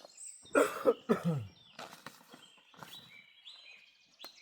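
Small songbirds singing and chirping in the woods, high thin calls and trills. About half a second in, a brief loud low voice sound from a man cuts in, and a single sharp click comes near the end.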